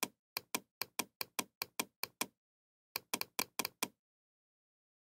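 A computer mouse button clicked rapidly over and over, about five sharp clicks a second, in two runs with a short pause between them, stopping a little before the end.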